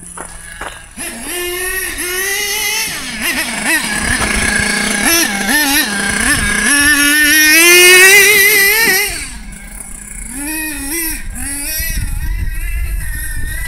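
Small nitro engine of an OFNA LX-1 1/8-scale RC buggy revving up and down while driving in snow. The pitch climbs to its loudest and highest about eight seconds in, then drops sharply to lower, quieter revs.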